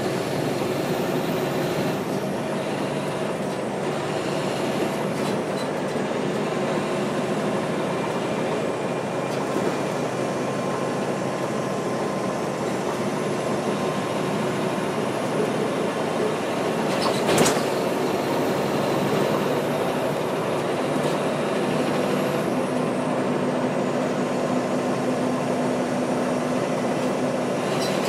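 NABI 416.15 transit bus with a Caterpillar C-13 ACERT diesel and ZF Ecomat 6-speed automatic running steadily at speed, with road noise and rattles. There is one sharp clunk about 17 seconds in.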